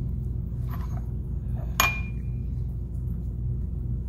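Glass beaker clinking sharply once, about two seconds in, with a brief ring after it, and a fainter tap a second earlier, over a steady low hum.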